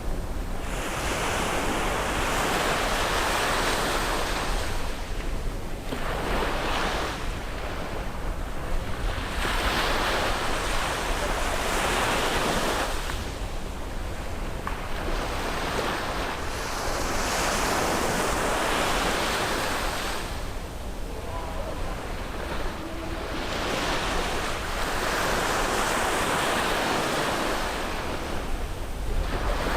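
Sea waves breaking on the shore and washing back, swelling to a rush about every five or six seconds. A steady low rumble of wind on the microphone runs underneath.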